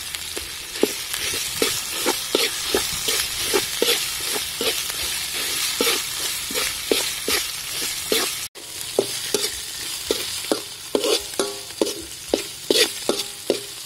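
Spice paste sizzling in hot oil in a steel wok while a metal spatula stirs and scrapes it against the pan in quick strokes, about two to three a second, each scrape ringing briefly off the metal.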